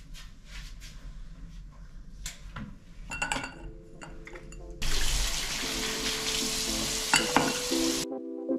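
Light clicks and clatter of toiletries and a glass on a bathroom counter, then a tap running into the sink for about three seconds, stopping abruptly near the end.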